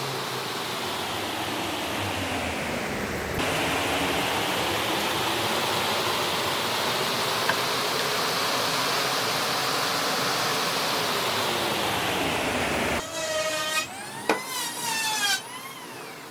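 A power tool running steadily on wood, then stopping about three seconds before the end. It is followed by a few short, high chirps that rise and fall in pitch.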